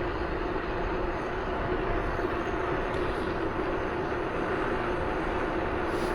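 A moving vehicle's steady running noise: an even rush of wind and road noise with a constant engine drone, holding at a steady speed.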